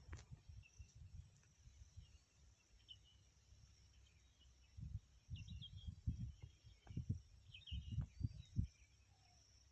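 Faint riverbank ambience: short, scattered bird chirps over a steady, high insect drone. Uneven low rumbling on the microphone swells in the second half and is the loudest part.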